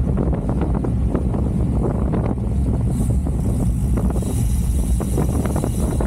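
Wind buffeting the microphone of a bike-mounted action camera while riding at speed in strong wind, a steady low rumble. A fainter high hiss comes in about halfway.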